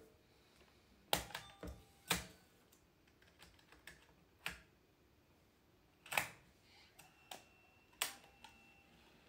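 Sharp plastic clicks and clacks of a Sony VX camcorder being handled as a MiniDV tape is loaded and its controls are worked, about eight separate clicks over several seconds. A faint thin whine sounds briefly near the end.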